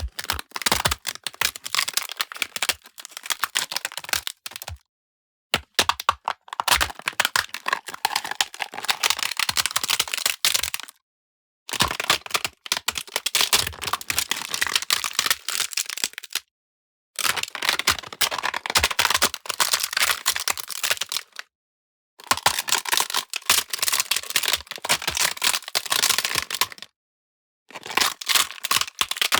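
Ice cracking and crackling: dense runs of sharp snaps and crackles in six separate bursts of about four to five seconds each, with short silent breaks between them.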